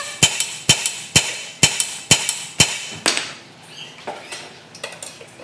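Hammer striking the steel front wheel hub and knuckle assembly of a Maruti Suzuki Wagon R: six sharp, ringing metal blows about twice a second, then a few faint clinks of tools.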